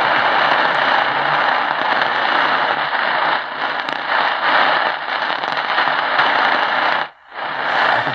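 Tecsun PL-680 radio's speaker giving out steady AM-band static and crackle while tuned to 540 kHz medium wave. The static cuts out briefly near the end.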